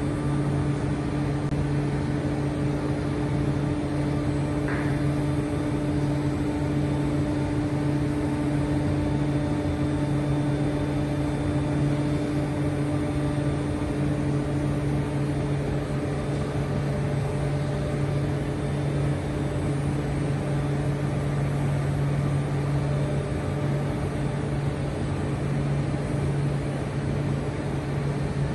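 A 500 kg pastırma press running as its pressing plate slowly lowers onto stacked pastırma. It makes a steady mechanical hum with a low tone and a higher tone that do not change.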